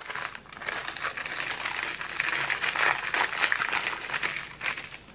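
Thin clear plastic bag crinkling as it is handled in the fingers, the crackling dying away near the end.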